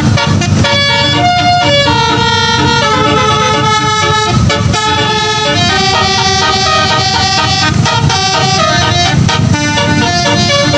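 A bus's multi-note 'telolet basuri' air horn playing a tune, held notes stepping from pitch to pitch without a break, over a low engine rumble.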